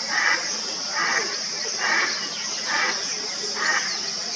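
Indian spot-billed duck calling: a series of evenly spaced quacks, about one a second, five in all. A steady, high-pitched chirring of crickets runs underneath.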